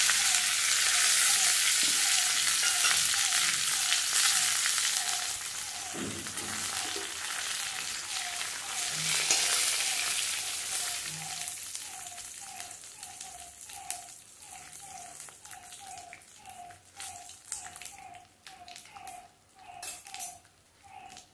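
Curry leaves and green chillies sizzling in hot oil with mustard seeds and urad dal in a kadai, the tempering stage of a chutney. The hiss is strongest at first and dies away over the second half, with spatula stirs and clicks against the pan. A faint, regular chirp repeats about twice a second behind it.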